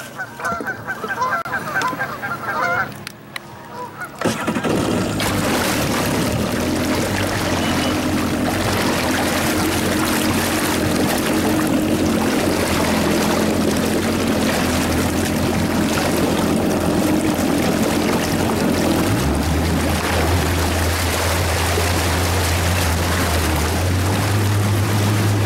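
Geese honking for the first three seconds or so, then a jet ski's engine running steadily under way takes over about four seconds in, its low pitch rising in two steps near the end.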